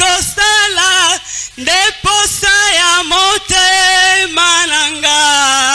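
One voice singing long, held notes with a slight waver and short breaths between phrases, over a faint steady low hum.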